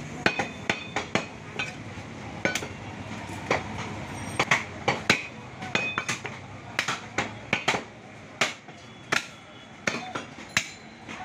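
Butcher's large knife chopping beef on a wooden log chopping block: a quick, uneven run of sharp chops, two or three a second, a few with a brief metallic ring.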